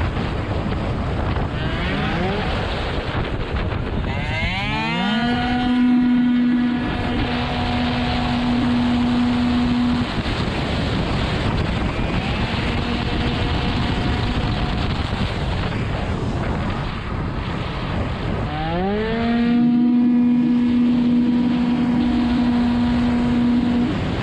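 Tuned two-stroke racing scooter engine heard onboard at speed, holding a high, steady pitch at near full revs. Twice the revs fall away and then climb sharply back to the top as it accelerates out of a corner. Wind rushes over the microphone.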